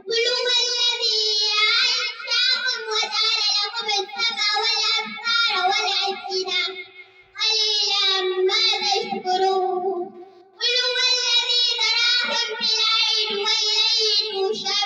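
A young girl's voice reciting the Quran in a melodic chant, in long flowing phrases with two short pauses, about halfway and two-thirds of the way through.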